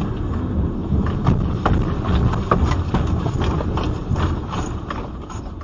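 Car interior rattling and knocking irregularly over a heavy low rumble as the earthquake shakes the moving car, easing off near the end.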